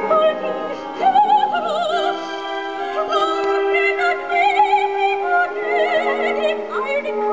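Operatic singing with a strong vibrato over instrumental accompaniment, played from an FM broadcast through the speaker of a Philips AJB3552/05 DAB/FM clock radio.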